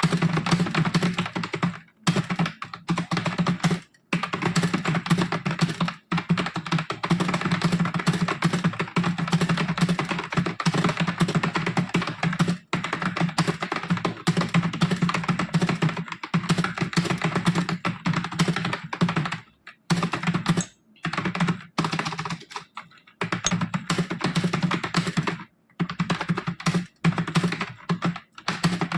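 Fast continuous touch-typing on a computer keyboard: rapid key clicks with a few brief pauses, the longest around twenty seconds in.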